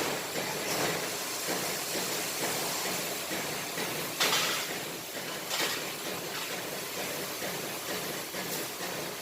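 Steady machine-shop noise with several short bursts of compressed-air hiss, the loudest about four seconds in and another a second and a half later.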